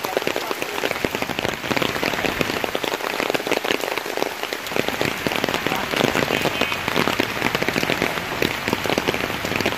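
Steady rain falling, the nearby drops heard as dense, irregular clicks; it grows a little louder from about halfway through.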